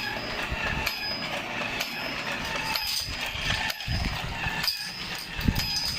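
Plastic toy domino train set clattering: a steady run of small plastic clicks and rattles, with short high squeaks now and then.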